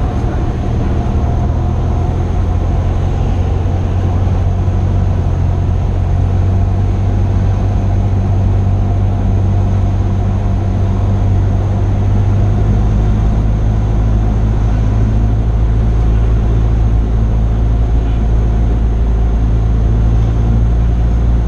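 Cessna 172's piston engine and propeller drone steadily in flight, heard from inside the cabin. The tone shifts slightly lower about halfway through.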